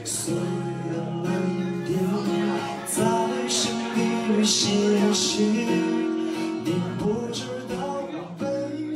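A man singing to his own acoustic guitar: a slow song with long held notes over strummed chords.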